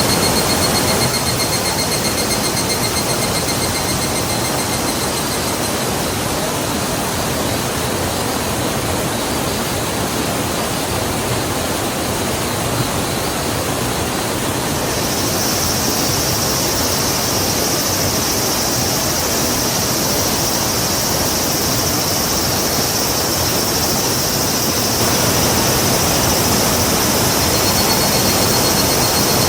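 A river rushing steadily. Over it come high, fast-pulsing tones during the first few seconds and again near the end, and a steady high hiss from about halfway through.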